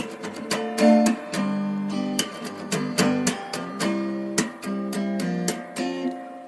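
Background music: plucked acoustic guitar, strummed chords and picked notes.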